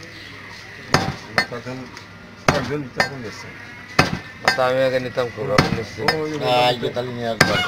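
Heavy butcher's cleaver chopping beef on a wooden chopping block: about seven sharp chops at irregular intervals.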